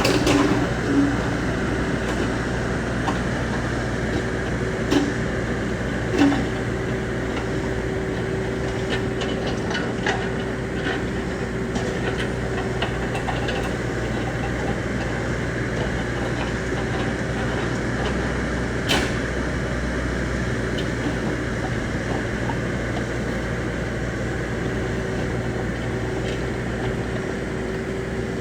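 Bobcat E26 compact excavator's diesel engine running steadily under work, with a few sharp knocks, about five and six seconds in and again near the middle.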